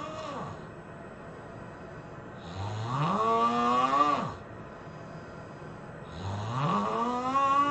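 A person snoring loudly, each snore pitched and rising in pitch before holding and breaking off abruptly, repeating about every three and a half seconds: the end of one snore at the start, a full one in the middle and another near the end.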